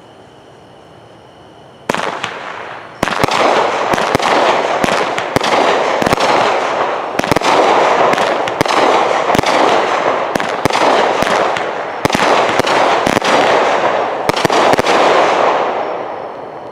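Phantom Fireworks 'Red, White and Boom' 200-gram, 16-shot consumer cake firing. One sharp report comes about two seconds in, then launches and bursting shells follow one after another in a fast, loud run for about twelve seconds, dying away near the end.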